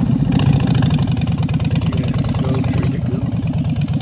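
A vehicle engine running steadily while driving, a low rumble with a fast even pulsing.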